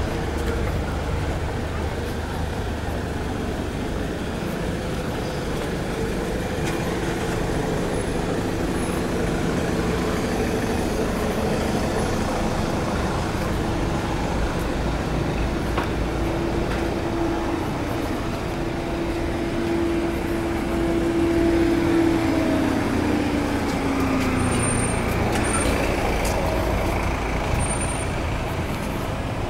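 Road traffic on a busy town high street, engines running steadily close by. One vehicle's engine tone holds and then drops in pitch about three quarters of the way through, where the traffic is loudest, and a few short high squeaks follow near the end.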